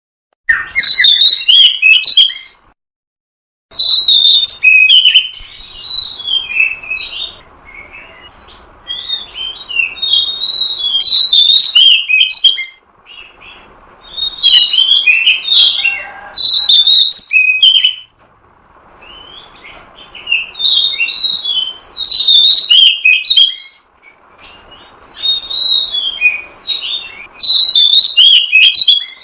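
Oriental magpie-robin (kacer) song played loud as a trapping lure: bouts of rapid, varied whistles and chattering notes with short pauses between them. The recording drops to dead silence for about a second near the start.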